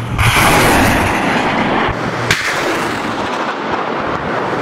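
Truck-mounted multiple rocket launcher firing: a rocket leaves the tube just after the start with a loud rushing roar of its motor that carries on, and a sharp crack a little over two seconds in.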